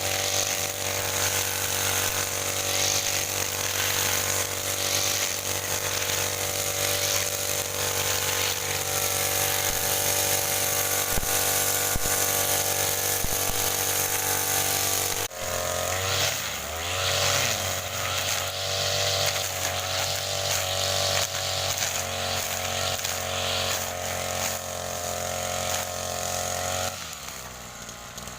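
Grass cutter (brush cutter) motor running steadily at high speed. About halfway through the sound changes abruptly, and the speed then dips and picks up again. Near the end it drops off once more.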